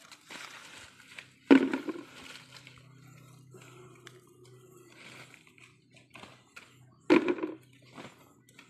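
Hands scrabbling through dry leaves and fallen pili fruits, the fruits clicking against each other, with two loud knocks, one about a second and a half in and one about seven seconds in.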